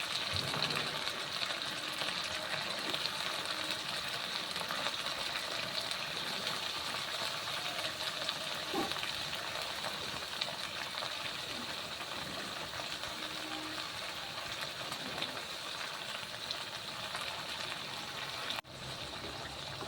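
Sliced upo (bottle gourd) frying in hot oil in a wok with sautéed onion, garlic and sardines: a steady sizzle that breaks off for an instant near the end.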